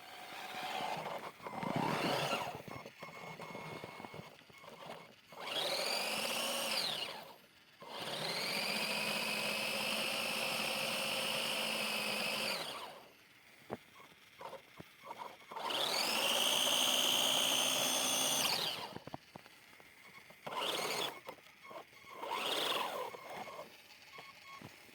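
Electric motor of an RC off-road 4x4 car whining in repeated bursts of throttle, its pitch rising at the start of each: the car stuck in snow with its wheels spinning. The two longest bursts last about four and three seconds, among several short ones.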